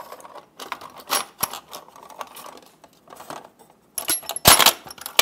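Steel twist drill bits clinking and rattling against each other and against a metal drill index case as they are handled, with a louder clatter about four seconds in.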